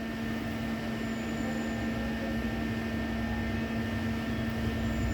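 Steady machine hum with a faint hiss, holding one low pitch throughout.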